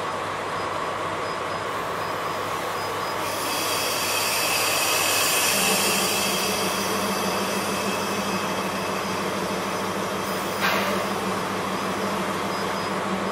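JNR Class DE10 diesel-hydraulic locomotive running at idle close by, a steady low hum. About three seconds in a loud hiss of air comes up and lasts several seconds, a deeper steady tone joins the engine sound a couple of seconds later, and there is one sharp crack near the end.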